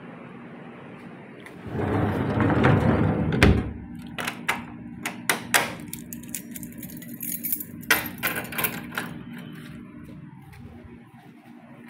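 A door is pushed shut with a scraping rush that ends in a thud, then a bunch of keys jingles and clicks as a key is worked in the door's lock. A steady low hum runs underneath.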